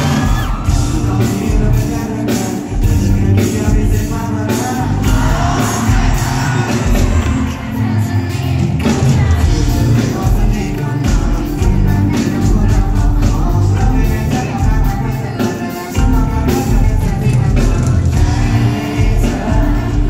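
Pop-rock band playing live: a lead singer over drums, bass, electric guitar and keyboard, with a steady drum beat.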